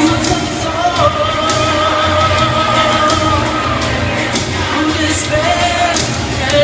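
Pop song with a sung vocal over a steady beat, played loud over loudspeakers as dance music.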